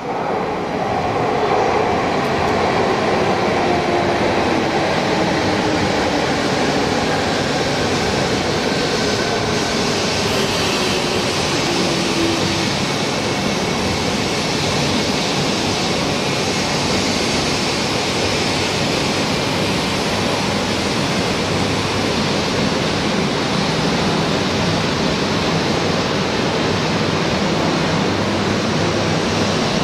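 A coupled 400 series and 200 series Shinkansen train, 17 cars long, running past at close range: a steady loud rumble and rush of wheels on rail. Over roughly the first twelve seconds a faint whine falls in pitch as the train slows.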